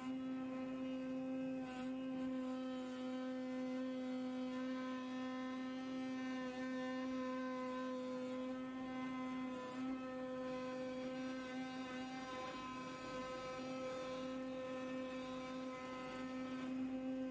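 CNC flatbed cutter's vibration knife running as it cuts carpet car-mat material: a steady hum on one pitch with a ladder of overtones.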